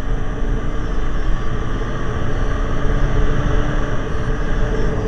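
Motorcycle engine running at a steady road speed, with wind rushing over the rider-mounted microphone; the engine note eases off about four seconds in.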